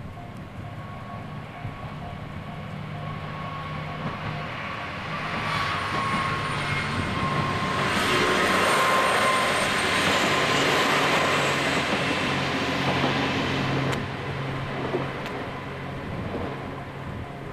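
A diesel railcar passing over a level crossing: its engine hum and rolling wheels grow louder, are loudest about halfway through, then fade after about 14 seconds.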